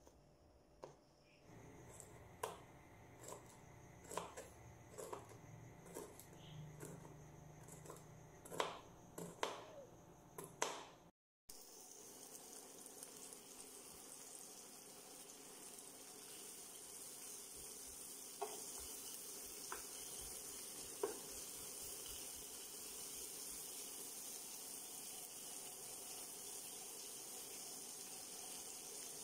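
A knife chopping green beans on a plastic cutting board, irregular knocks for about the first ten seconds. Then dried anchovies frying in oil in a pan, a steady sizzle with an occasional light click.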